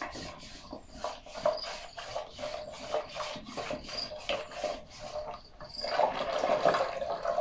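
A wooden stirring stick scraping against a metal pot in repeated strokes as maize flour is stirred into water to keep it from clumping, the first stage of making ugali. The strokes grow a little louder near the end.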